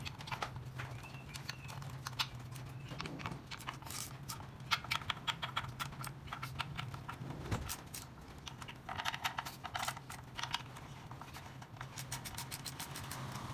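Socket ratchet clicking in quick runs, a few bursts with pauses between, as the oil pan bolts are driven in.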